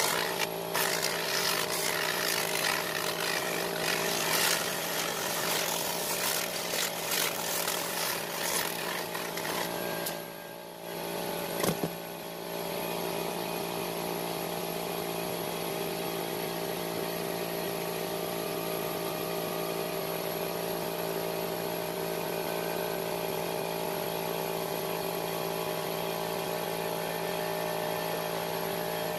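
A steady machine hum from a running motor, with irregular rustling and scraping over roughly the first ten seconds. The hum dips briefly with a single click about ten to twelve seconds in, then runs on evenly.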